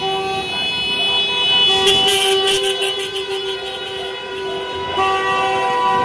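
Car horns blaring in a slow street convoy, several held long blasts overlapping. A brief burst of noise comes about two seconds in.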